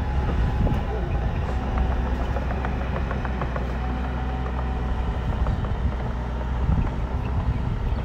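Diesel engine of earthmoving machinery running steadily under load, with a deep hum and a few faint knocks.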